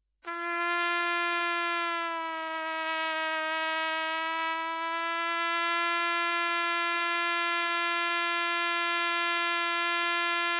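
Trumpet playing one long held note that is bent down slightly in pitch about two seconds in and brought back up to its pitch centre a few seconds later, then held steady: a note-bending exercise, detuning the note and returning it to the centre.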